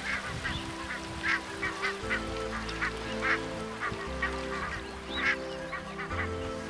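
A migrating flock of barnacle geese calling in flight: many short, high calls overlapping throughout.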